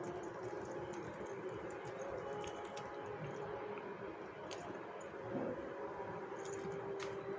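Small clicks and rustling as a blind bag's packaging is handled and opened.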